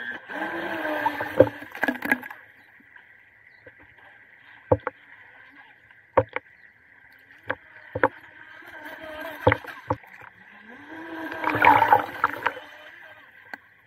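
UDIRC UDI005 brushless RC speed boat running on the sea: a steady high motor whine that swells louder twice, near the start and near the end, with scattered sharp knocks in between.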